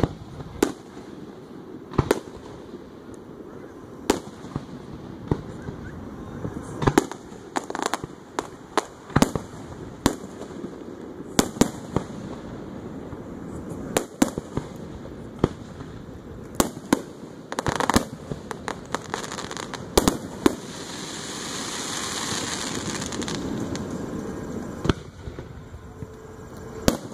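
Aerial firework shells bursting in an irregular series of sharp booms, sometimes two or three in quick succession. About two-thirds through, a few seconds of continuous hissing noise builds and fades between the booms.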